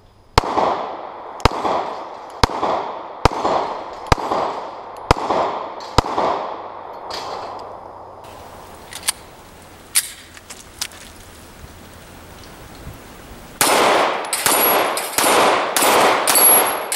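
Glock 26 9mm pistol fired at steel plates: seven shots about a second apart, each followed by a decaying echo, then near the end a faster string of about five louder shots.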